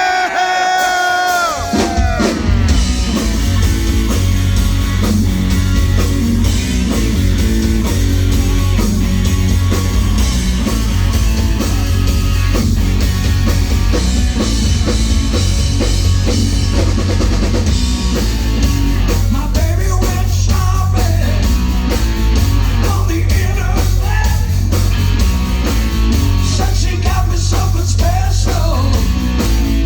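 Live rock band playing the opening of a song with electric guitar, bass and drum kit. A single held, bending note sounds first, and the full band comes in about two seconds in and plays on loudly.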